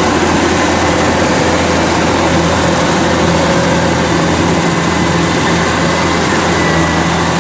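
Kubota combine harvester's diesel engine running steadily at idle, a constant low hum with a faint high whine over it.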